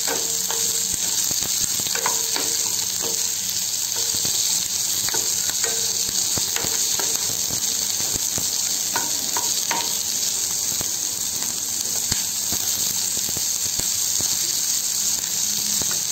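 Sliced onions sizzling steadily in hot oil in a kadhai, being sautéed toward golden brown, while a wooden spatula stirring them scrapes and clicks against the pan now and then.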